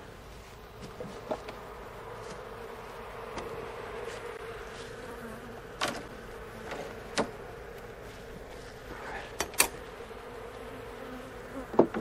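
Honeybees buzzing in a steady hum around an opened hive. Now and then come sharp knocks and clicks from the wooden hive boxes and frames being handled, the loudest near the end.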